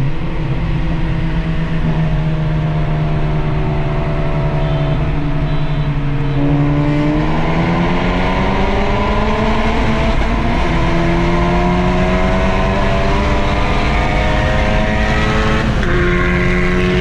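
Civic Type R FK8's turbocharged 2.0-litre four-cylinder engine through a catless straight-pipe exhaust, holding a steady drone and then rising slowly in pitch as the car accelerates, with a step in pitch near the end as it shifts gear.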